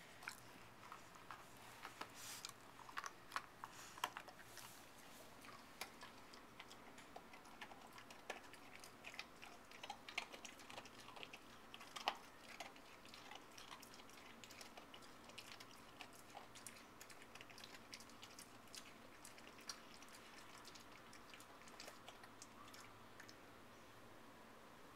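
Dog crunching and chewing a dog biscuit: faint, irregular crunchy clicks, thickest in the first half and thinning out later.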